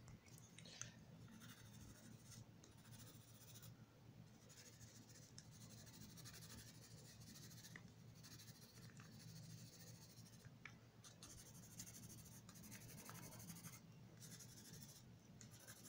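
Coloured pencil scratching faintly over paper in steady shading strokes, over a low steady hum.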